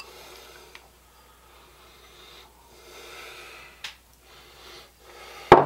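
Soft handling sounds of sautéed mushroom slices being placed by hand onto stromboli dough, with a few small clicks. Near the end come two sharp knocks as the bowl is set down on the wooden tabletop.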